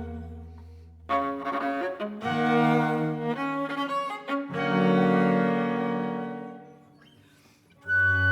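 Viola and double bass of a piccolo, viola and double bass trio playing a slow chamber piece: a low note dies away, short bowed phrases follow, then a long held chord fades almost to silence before the low double bass and the others come back in loudly near the end.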